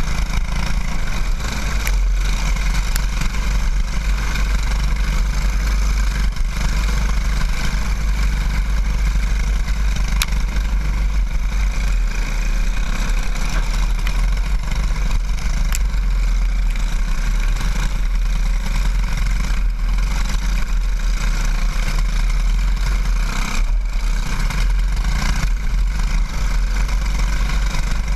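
Racing kart's single-cylinder engine running hard at racing speed, heard from on board over heavy wind rumble on the microphone. The engine note dips briefly a few times.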